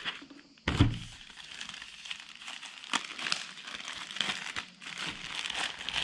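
Plastic protective bag crinkling and rustling as the drone is lifted out of its box and unwrapped, with a knock about a second in.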